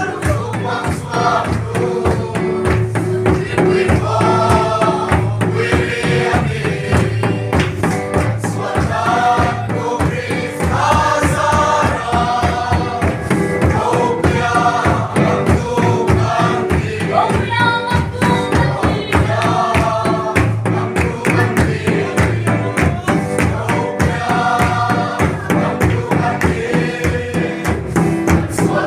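A congregation singing a gospel hymn together, with instrumental accompaniment and a steady percussive beat.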